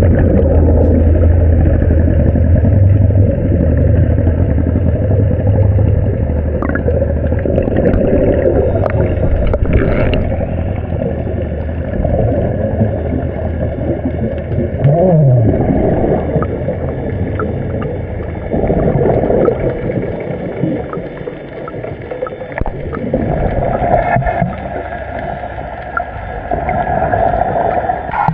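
Underwater sound, muffled by an action camera's housing: a scuba diver's regulator breathing, with exhaled bubbles gurgling up in swells every few seconds. A low engine hum carries through the water for the first six seconds, then fades.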